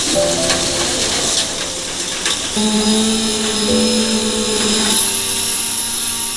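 Background music of held notes that change every second or so, over a steady noisy hiss with a few sharp clicks in the first two seconds.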